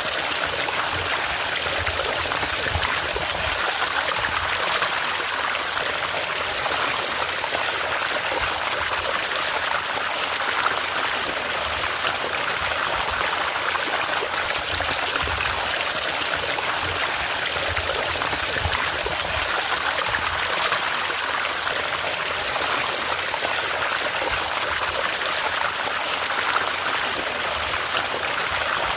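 River water rushing steadily over small waterfalls, an even, unbroken hiss.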